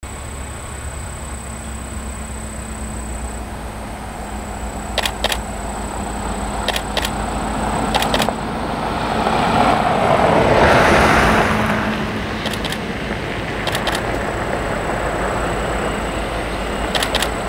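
A road vehicle passing by: its noise swells to a peak about ten seconds in and fades, over a steady low rumble and a thin steady high whine. A few pairs of sharp clicks are heard along the way.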